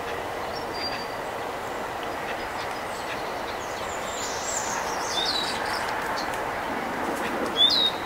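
Small songbirds chirping over a steady distant rumble: a brief call about a second in, a few quick falling chirps around five seconds in, and a louder chirp near the end.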